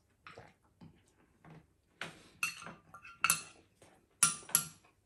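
Metal spoon and fork clinking against a ceramic plate and serving bowl during a meal: a string of short, sharp clinks, the loudest about four seconds in.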